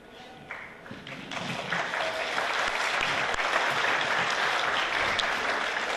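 Audience applauding, building over the first two seconds into steady clapping.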